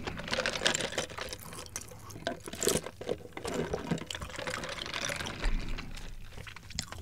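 Soda drawn through a plastic straw from a paper cup, with wet mouth and swallowing sounds, picked up close on a sensitive microphone.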